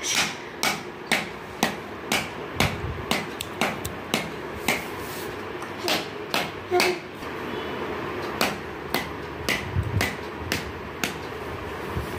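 Repeated sharp knocks of a small hand-held object struck by a toddler, irregular at about two to three a second, with a brief lull past the middle.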